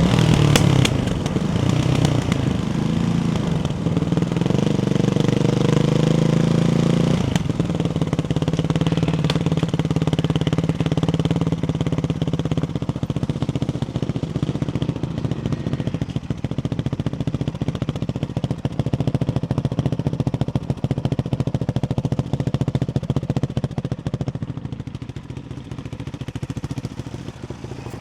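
Ducati Hypermotard 698 Mono's single-cylinder engine running through a Termignoni exhaust with its baffles in. It rises in pitch for about the first seven seconds, changes abruptly to a steadier pulsing run, and grows quieter near the end.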